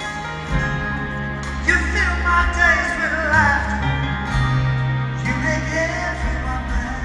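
A male singer performing a slow ballad live over a band with bass and guitar, amplified through an arena sound system. The voice comes in as two sung phrases, the second starting about five seconds in.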